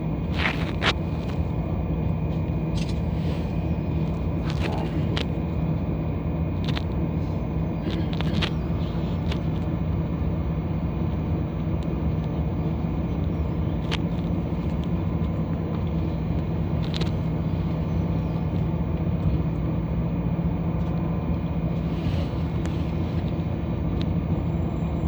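Bus interior while moving: a steady engine drone with a strong low hum, and scattered clicks and rattles from the bus body.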